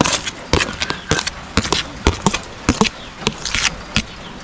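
A spoon tapping and scraping against a plastic plate as sliced red onions are pushed off it into a bowl: a quick, irregular run of sharp clicks and knocks with a few short scrapes.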